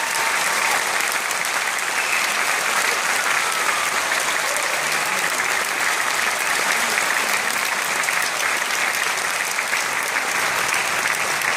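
Large concert audience applauding, dense and steady clapping throughout.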